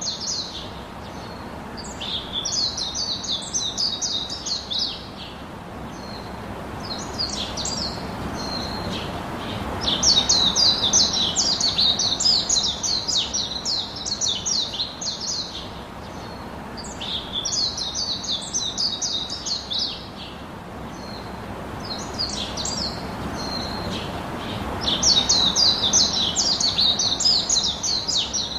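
Small pet birds chirping in repeated bursts of fast, high twitters, each phrase lasting a couple of seconds with short pauses between, over a steady low background noise.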